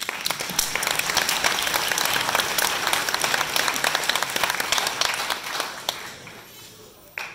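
Audience applause, a dense patter of many hands clapping that starts at once and dies away about six to seven seconds in.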